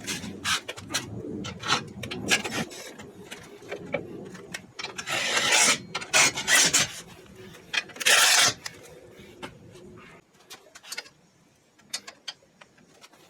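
Shop work noises: irregular clicks and clinks with scraping and rubbing, and two louder rasping bursts about five and eight seconds in, then fewer, sparser ticks near the end.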